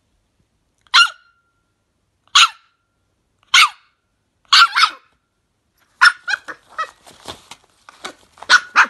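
Scottish terrier puppy barking at a paper carrier bag: three single sharp barks a bit over a second apart, then a double bark, then a faster string of short barks and yaps in the last three seconds.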